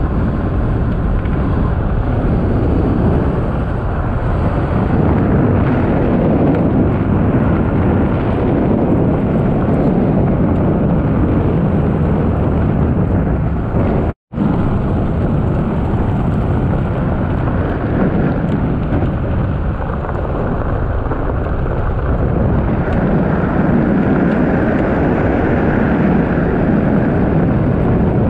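Loud, steady wind rumble and buffeting on a moving camera's microphone. It cuts out for a split second about halfway through.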